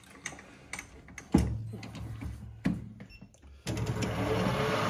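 Light clicks and two sharp metal knocks from the lathe being set up. About three and a half seconds in, the metal lathe starts and runs steadily, its chuck spinning a brass workpiece ready for drilling.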